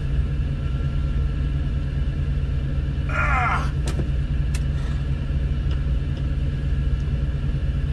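Semi-truck diesel engine idling, a steady low rumble heard inside the cab. About three seconds in there is a short squeal, and a few light clicks follow as pliers work at a fastener on the dash.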